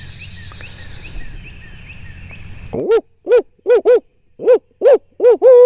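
A hunter's barred owl locator call: about eight loud hoots in an uneven, grouped rhythm, ending in one long drawn-out note that falls in pitch. It is an owl hoot given to shock a gobbler into gobbling.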